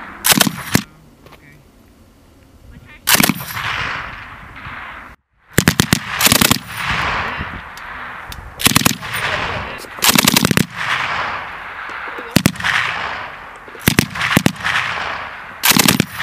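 M240 7.62 mm belt-fed machine gun firing about eight short bursts of a few rounds each, every burst followed by a long echo that fades off. The sound cuts out for a moment about five seconds in.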